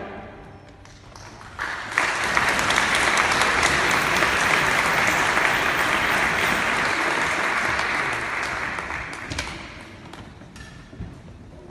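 An audience applauding: the clapping starts suddenly about two seconds in, holds steady, then dies away near the end.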